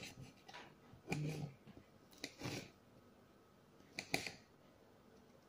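Green chili peppers being cut with a blade on a glass cutting board: a few short, sharp cuts and clicks at uneven intervals.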